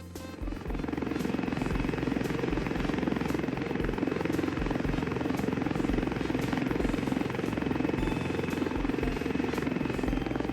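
Helicopter rotor chopping over its engine, a steady fast flutter held for about ten seconds, starting about half a second in.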